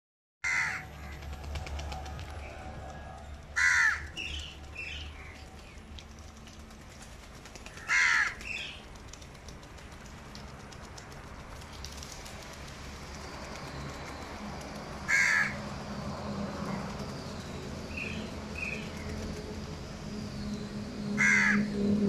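House crows cawing: five loud, harsh caws spaced several seconds apart, with a few softer calls in between.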